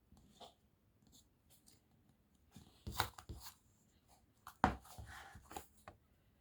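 Handmade slime being squeezed and stretched by hand, giving scattered sticky clicks and pops. Two louder snaps come about three seconds in and again a second and a half later.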